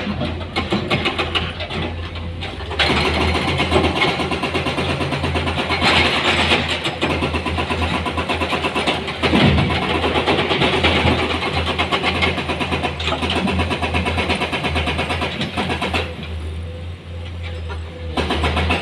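Diesel engine of heavy earthmoving machinery running, with a steady low drone throughout. It grows louder and more rattly from about three seconds in, then eases back near the end.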